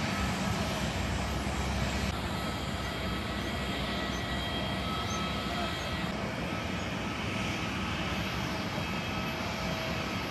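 Steady jet engine and airflow noise inside an Airbus A330-300 cabin: a broad, even hiss with faint steady whining tones. The low rumble eases about two seconds in.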